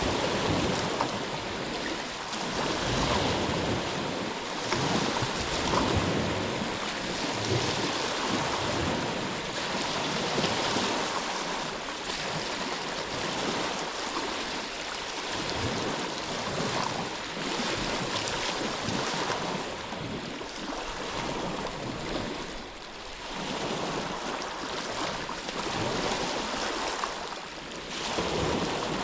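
Ocean surf: waves breaking and washing in, a continuous rush that swells and eases every few seconds.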